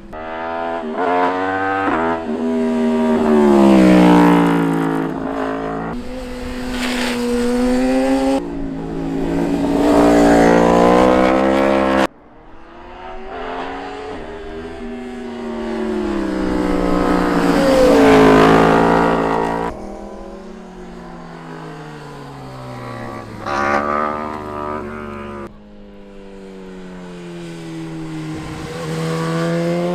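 Sport motorcycles passing one after another, engines revving up in pitch under acceleration and dropping in pitch as each goes by. The sound breaks off abruptly a couple of times as one pass gives way to the next.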